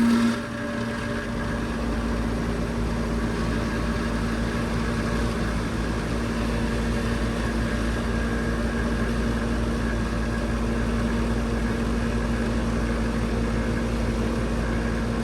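1988 Whirlpool-Tempstar central air conditioner's outdoor condensing unit running steadily just after starting up: an even compressor hum with the condenser fan. The start surge settles within the first half-second. The owner thinks the compressor and valves sound kind of worn.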